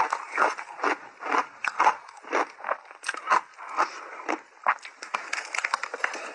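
Crunchy shaved ice being chewed close to the microphone: a quick, irregular run of sharp crunches, about two or three a second.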